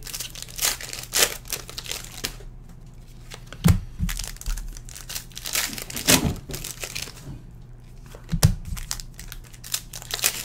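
Foil trading-card pack wrappers being torn open and crinkled by hand, in repeated rustling flurries, with a few dull thumps on the table in between.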